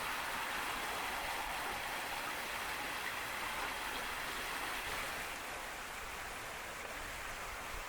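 Steady rushing of running water, a little quieter after about five seconds.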